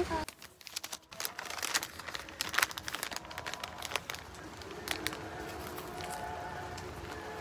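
Brown paper waffle wrapper crinkling as it is handled, a run of crisp crackles over the first few seconds that then die down.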